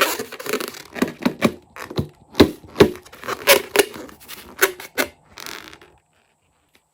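Clear slime being squeezed and worked by hand, giving a run of irregular sticky clicks, pops and squelches that stop about six seconds in.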